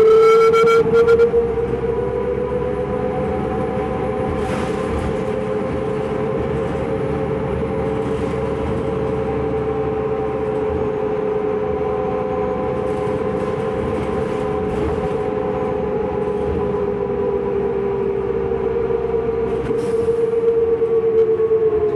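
A 2005 New Flyer D40LF diesel transit bus heard from inside the cabin: a steady high whine over engine and road rumble. The whine climbs in pitch in the first second, holds, then slowly falls over the second half. A few light rattles come through now and then.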